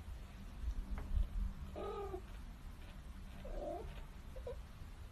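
A cat making a few soft, short mews, about two seconds in and twice more past the middle.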